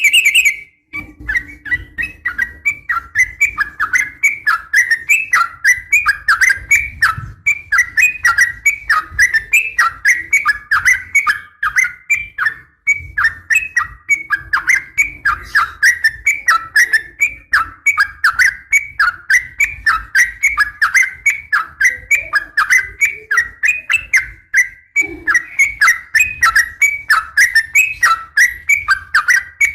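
Sooty-headed bulbul (trucukan) calling in a fast, rapid-fire 'ropel' run of short, sharp chirps, several a second, each dropping in pitch. The run goes on almost without a break, pausing only briefly twice.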